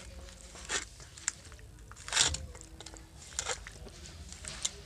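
A hand squishing and mixing chicken pieces with chopped capsicum, onion and tomato in a wet yogurt marinade in a stainless steel bowl: irregular squelches and crunches, the loudest about two seconds in.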